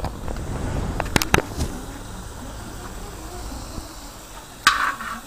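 Chicken and sausage frying on a plough-disc griddle over a gas burner, a steady sizzle. Two sharp clicks come a little over a second in, and a brief louder burst of sizzle near the end.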